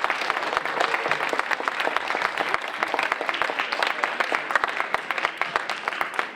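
An audience applauding with many people clapping, steady throughout and dying away right at the end.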